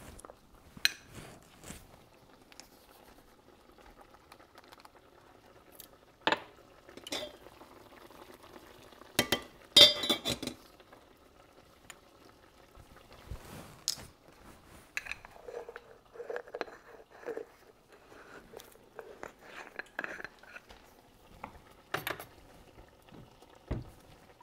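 Utensils clinking, knocking and scraping against stainless-steel pots and pans on the stovetop as the food is stirred: scattered sharp strikes, the loudest cluster about ten seconds in.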